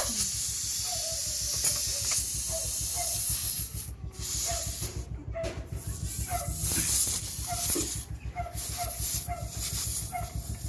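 Air hissing out of a tubeless tyre through the puncture the nail has just been pulled from; the hiss is steady for the first few seconds, then continues more unevenly with brief breaks. A dog yips faintly and repeatedly in the background.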